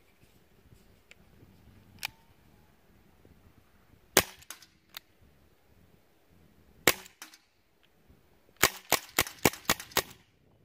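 CO2-powered airsoft pistol firing. Two single sharp shots a few seconds apart, then a fast string of about seven shots near the end.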